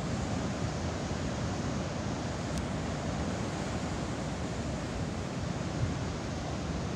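Steady rush of heavy ocean surf mixed with wind buffeting the microphone.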